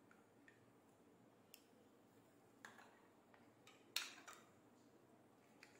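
A few faint clicks and light taps from a metal lever-release ice cream scoop working ice cream onto glasses of shake, the sharpest about four seconds in.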